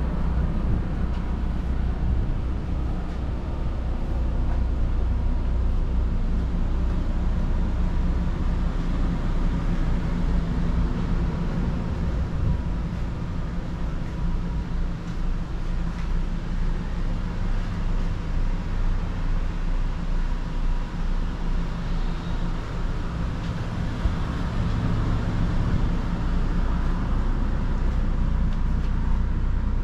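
A steady low machine rumble with a faint steady whine above it.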